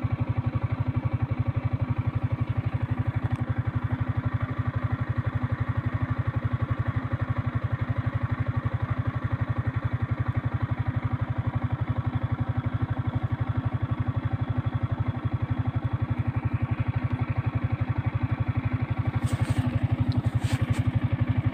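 Small motorcycle engine running at a steady speed, with a fast, even exhaust beat and a few brief rattles near the end.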